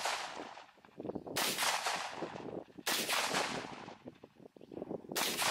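AR-15 rifle firing single shots: three sharp reports about one and a half to two seconds apart, each with a long echoing tail, following the tail of a shot fired just before.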